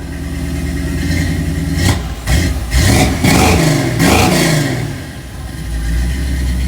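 The 1965 Ford F100 pickup's engine running and being revved twice in the middle, pitch rising and dropping back each time, then settling to a steady idle.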